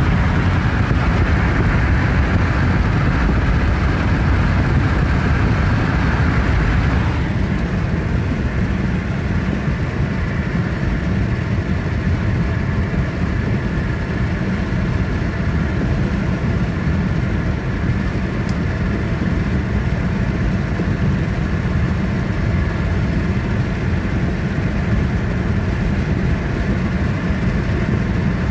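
Car driving along, heard from inside the cabin: a steady deep rumble of engine and tyres with a hiss of road and wind noise above it. About seven seconds in, the higher hiss drops and the sound settles into a lower, even drone.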